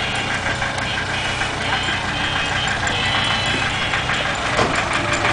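Narrowboat's diesel engine running steadily at low revs, with a regular knocking beat.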